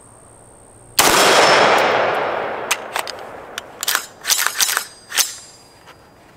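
A single shot from an AR-15 rifle in 5.56 NATO about a second in, its echo dying away over about a second and a half, followed by a run of sharp metallic clicks and clacks as the rifle's action is handled. The adjustable gas block is on setting 7, which does not give enough gas to lock the bolt back for this ammunition.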